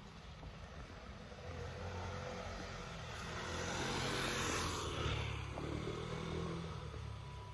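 A vehicle passing by: a rushing noise with a low rumble that grows louder over a few seconds, peaks about four to five seconds in, then fades away.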